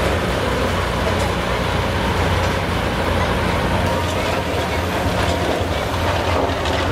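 John Deere hot stock pulling tractor's diesel engine running steadily at low speed after its pull, a deep even hum.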